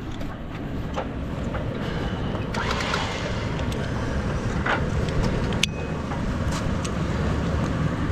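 A vehicle engine running steadily, with a few light clicks and knocks over it.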